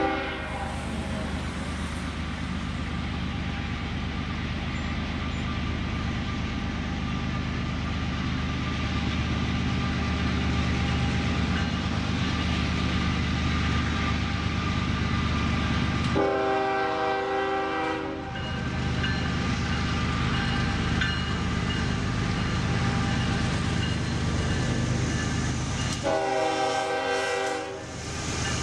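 Slow Norfolk Southern coal train approaching behind GE ES40DC and Dash 9-40CW diesel locomotives, their engines running with a steady low rumble. The locomotive horn sounds two chord blasts of about two seconds each, the first about halfway through and the second near the end.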